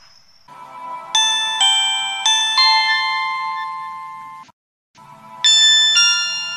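2007-era Samsung mobile phone power jingles: a melody of bright, bell-like chime notes that ring on and fade, cut off by a brief silence a little after four seconds in, then a second chime melody starting.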